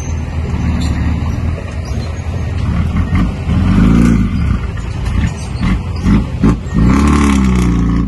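Heavy diesel engine of road-building equipment running under load, its pitch rising and falling twice as it is revved up and eased off.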